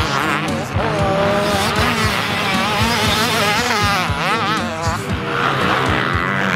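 Two-stroke KTM motocross bike revving up and down repeatedly as it is ridden around a dirt track, its engine pitch rising and falling with each throttle change.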